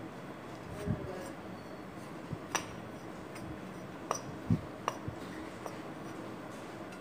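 A metal spoon stirring dry flour and milk powder in a glass bowl: a soft scraping with a handful of separate clicks as the spoon knocks against the bowl.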